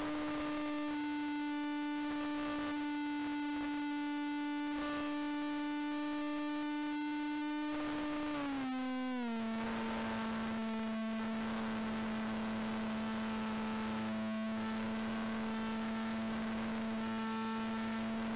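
Small RC airplane's 2200 kV brushless electric motor whining steadily in flight, with a steady hiss behind it. About halfway through the whine drops in pitch over about a second as the motor slows, then holds steady at the lower pitch.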